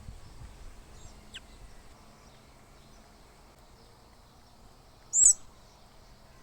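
A small bird calling near a feeder: a faint downward-sliding whistle about a second in, then one short, loud, very high-pitched call about five seconds in, over a quiet outdoor background.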